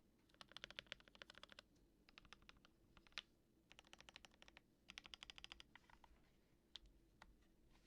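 Typing on a KBDFans D65 mechanical keyboard with a polycarbonate plate, lubed Mauve switches and GMK keycaps: four quick runs of keystrokes with short pauses between them, then a few single key presses near the end.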